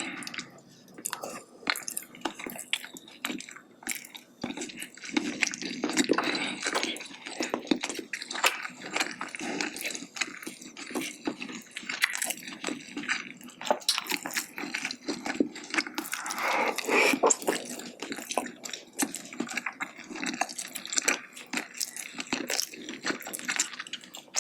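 Close-up eating of spicy braised chicken (jjimdak) with glass noodles: chewing and mouth sounds, a steady run of small clicks and smacks.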